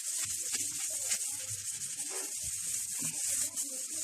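Steel-wire scrubber scrubbing greasy ceramic tiles wet with degreaser, a repeated rasping hiss of back-and-forth strokes.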